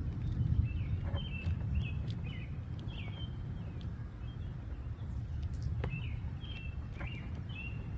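Small birds chirping in two spells of short, quick calls, over a steady low background rumble.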